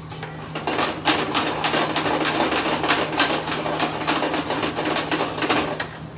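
Metal spoon rapidly scraping and clattering against a metal frying pan as mushroom rice is stirred and tossed. It is a fast, busy run of clicks that starts about half a second in and stops just before the end.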